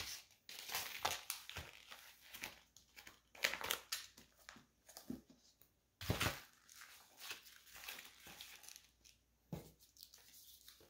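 Plastic food packages crinkling and rustling as they are handled and arranged, with scattered clicks and a sharper knock about six seconds in as a pack is set down on a glass tabletop.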